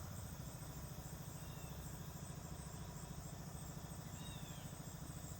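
A steady, low engine drone with a fast, even pulse, like a distant motor running. Over it, a short falling bird chirp comes twice, with a faint high insect trill.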